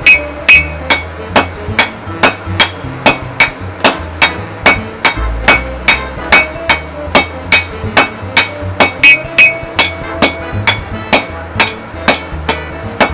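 Blacksmith's hammer striking steel on an anvil in a steady rhythm of about three blows a second, each blow ringing sharply, while forging rebar. Background music plays underneath.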